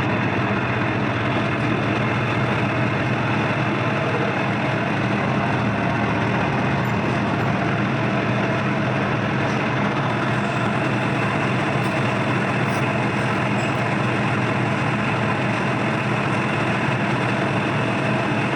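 Electra washing machine running with a loud, steady mechanical drone and hum that holds at one level throughout, a noise the owner calls bad, a sign of a fault in the machine.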